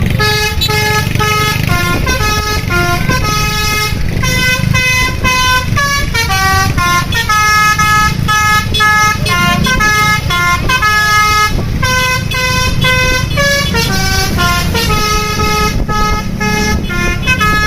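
Basuri multi-tone 'telolet' bus horn playing a tune, a fast run of clear notes stepping up and down about three times a second with hardly a break, over a low rumble.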